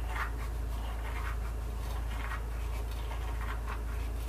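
Dry coriander seeds rubbed and crushed between the palms, giving short, irregular scratchy rustles as they crumble onto a plate, over a steady low hum.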